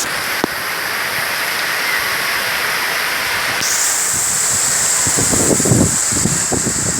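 Heavy rain pouring down in a steady loud hiss, changing abruptly about three and a half seconds in. From about five seconds in, low gusts of wind buffet the microphone.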